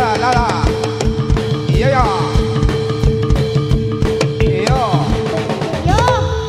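Loud jathilan accompaniment music over a sound system: drums keeping a steady beat of about three thumps a second under a held tone, with a high melodic line that swoops up and down four times.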